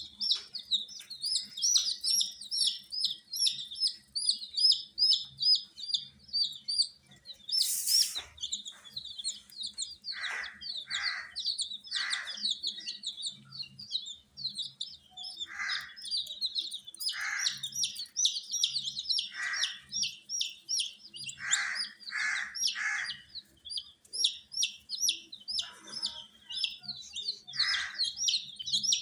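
A brood of baby chicks peeping nonstop in rapid high chirps. From about ten seconds in, lower, shorter calls join in every second or so. A brief rustling burst comes about eight seconds in.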